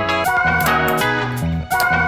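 Background music: an upbeat instrumental with guitar, a moving bass line and a steady beat.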